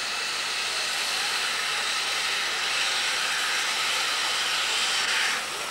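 Steam hissing from a CFV metre-gauge steam tank locomotive's open cylinder drain cocks as it moves slowly. The hiss is steady and cuts off suddenly near the end.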